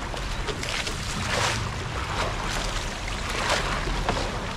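Sea water slapping and washing against the hull of a small fishing boat in a few short surges about a second apart, over wind noise and a low steady rumble.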